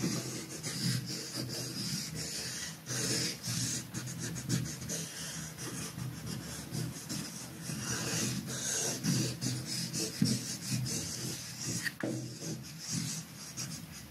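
Electronic soundscape of scratchy, crackling noise textures over a low drone, with irregular clicks and a sharper click near the end.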